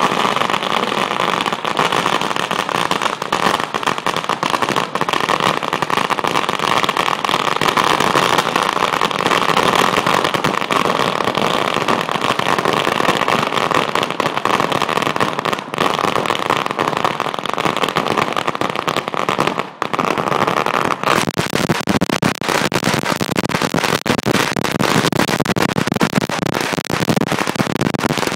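Firecrackers going off at ground level in a rapid, continuous crackle of bangs, with a steady hiss under them. About twenty seconds in the hiss stops and the bangs thin out into a looser, irregular run.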